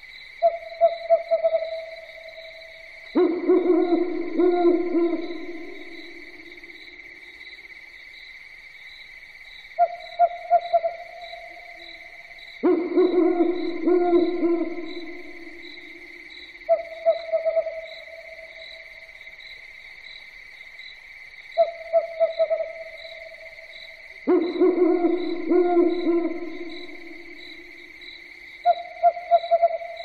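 Owl hooting. Short, stuttering hoots come five times, and three longer, lower hoots fall in between them, a call every few seconds. A steady high trilling, like insects at night, runs underneath.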